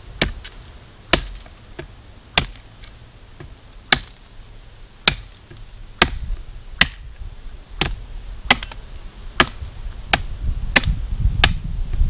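Tramontina machete chopping into a branch of very hard wood. About a dozen sharp chops, roughly one a second, coming a little faster near the end.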